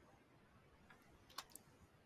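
Near silence broken by a few faint computer mouse clicks, the sharpest about one and a half seconds in.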